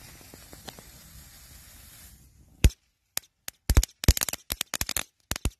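Knisterkopf crackling-ball fireworks: a steady hiss while they burn, then from about two and a half seconds in a run of sharp crackling pops that come thickest in quick clusters near the end.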